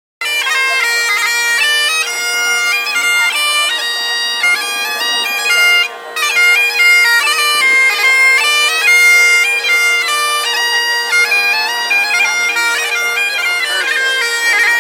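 Highland bagpipes playing a tune: the chanter's melody steps from note to note over the steady, unbroken hum of the drones.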